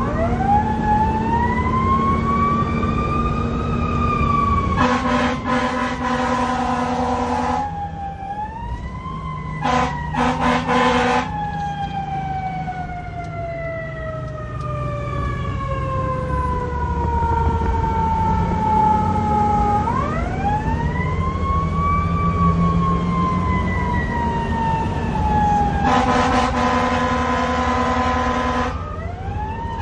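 Fire engine siren heard from inside the cab. It winds up quickly, then slowly winds down over many seconds, and winds up again about two-thirds of the way through. Loud air horn blasts cut in several times, two short ones around a third of the way in and a long one near the end, over the truck's engine and road noise.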